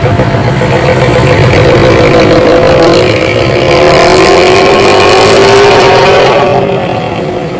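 Vehicle with a loud modified 'ngorok' (snoring-type) exhaust accelerating hard, its engine note climbing steadily. It fades somewhat near the end.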